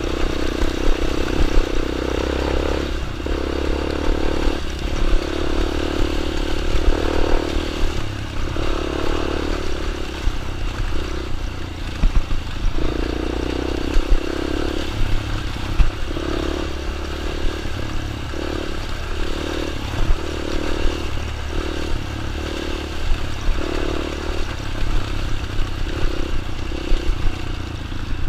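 Child's dirt bike running, its engine note swelling and dropping every second or two as the throttle is opened and eased off, with scattered clicks and clatter throughout.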